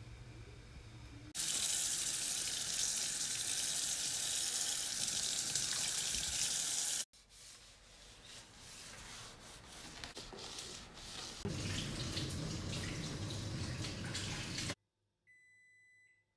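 Tap water running hard into a stainless steel kitchen sink, then a sponge scrubbing and wiping the sink with short rubbing strokes, then water running again. A short steady high tone sounds near the end.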